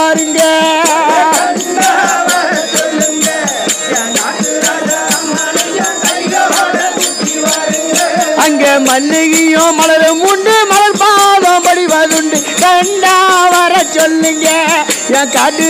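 Tamil devotional bajanai music: a group of small hand-held frame drums beaten in a fast, steady rhythm with a jingling, rattling edge, under a wavering sustained melody line.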